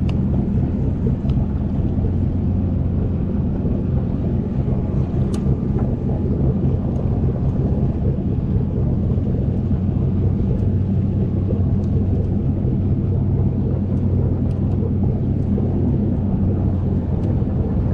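Boat motor running steadily with the boat under way, a low, even hum.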